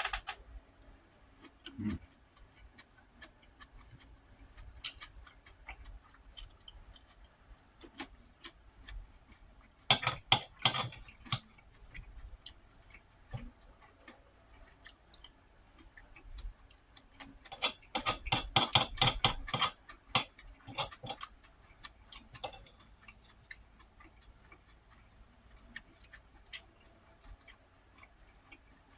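Close-miked eating noises: scattered small clicks and taps, with two dense runs of rapid clicking, one about ten seconds in and one from about eighteen to twenty seconds.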